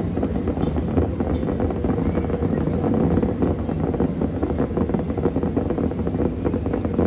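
Distant aerial fireworks popping and crackling in a dense, continuous string, with wind buffeting the microphone.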